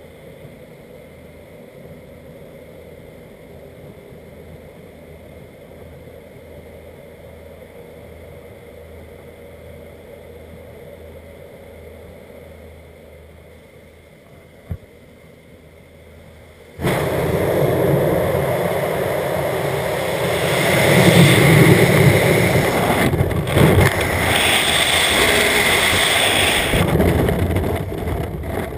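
Jump plane's engine drone heard from inside the cabin with the door open, steady and fairly quiet, with one sharp click near the middle. About 17 seconds in it gives way suddenly to a loud rush of wind over the helmet camera as the skydiver leaves the plane into freefall, easing a little near the end under the opened canopy.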